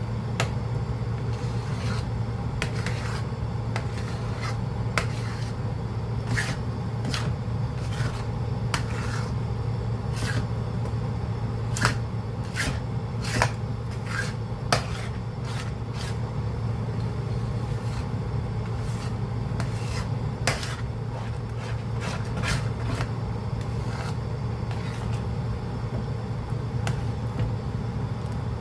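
A stirring spoon scraping and knocking against a cooking pot at an irregular pace as the thick calamay mixture is stirred, over a steady low hum.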